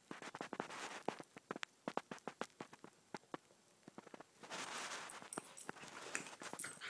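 A boxer and a shaggy black dog play-wrestling: a quick, irregular patter of clicks and taps from paws and claws, with a longer stretch of noisy scuffling from about four and a half seconds in as they tangle together.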